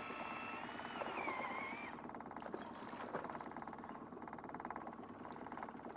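Boat motor running steadily at trolling speed. A high wavering whine rides over it for the first two seconds and then cuts off.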